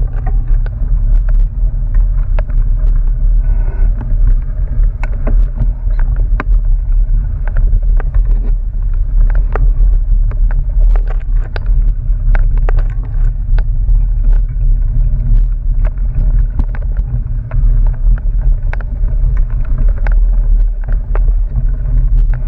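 Mountain bike riding fast over a dirt trail, heard through wind buffeting on the camera's microphone: a steady low rumble with frequent sharp clicks and rattles from the tyres on loose stones and the bike's frame and chain.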